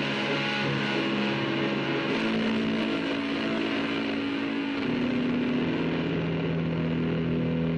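Background music: held, distorted chords that move to a new pitch a few times.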